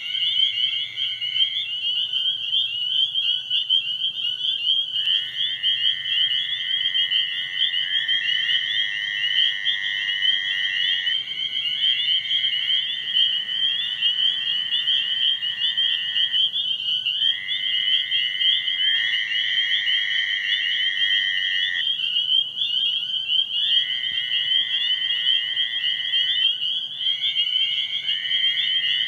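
Chorus of spring peepers, a dense unbroken mass of high peeps, with toads giving long steady trills of a few seconds each, lower in pitch than the peepers and often overlapping one another.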